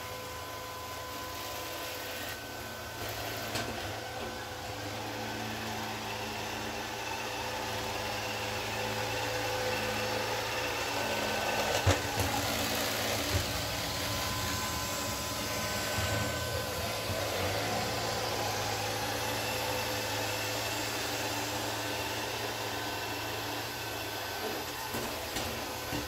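Neato D7 robot vacuum running: a steady hum from its suction fan and brushes with a thin whine over it, louder in the middle, with a few short knocks about halfway through.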